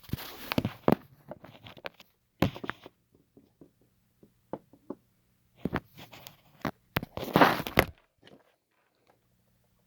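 Hard plastic toy casing being worked at by hand, likely pried or cut open, giving irregular bursts of clicking, scraping and crunching. The loudest bursts come near the start and again about seven to eight seconds in.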